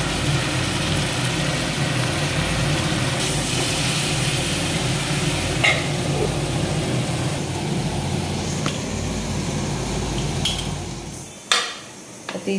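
Spiny gourd pieces cooking in an iron kadai: a steady sizzling hiss over a low hum, with a light clink of a steel lid about six seconds in. The sound stops abruptly near the end, and a single click follows.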